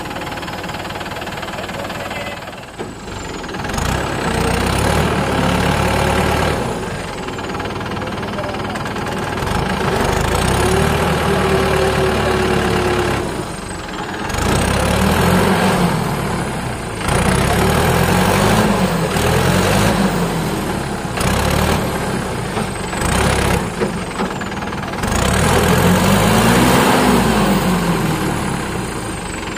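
Mahindra 595 tractor's diesel engine working hard as the tractor pushes through deep paddy-field mud, revving up and dropping back several times.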